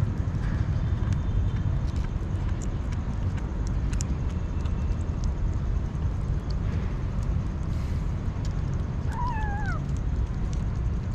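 A kitten meows once, a short call that falls in pitch, about nine seconds in, over a steady low rumble.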